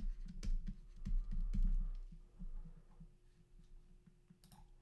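Stylus tapping and scratching on a pen tablet as a number is handwritten: a quick, uneven run of light clicks with dull low thumps, heaviest in the first two seconds, over a faint steady hum.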